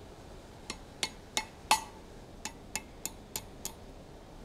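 Blacksmith's hand hammer striking a red-hot 5/16-inch round-bar staple over the anvil horn to bend it around. Nine quick blows come in two runs of about three a second with a short pause between; the fourth is the loudest and rings briefly.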